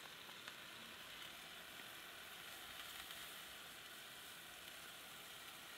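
Ground meat frying in a skillet on a portable gas camp stove, a faint steady sizzle.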